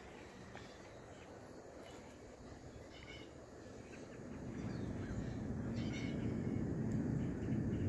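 Outdoor ambience with birds chirping a few times, over a low rumble that grows louder about halfway through and holds.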